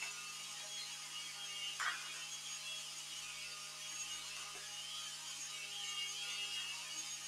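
Kenwood Cookeasy Platinum cooking food processor running steadily with a low hum while it blends roasted pepper. A single knock sounds about two seconds in.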